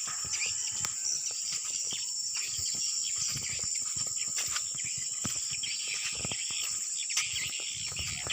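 Insects trilling steadily in a high, unbroken drone, with short bird chirps and scattered soft clicks and rustles over it.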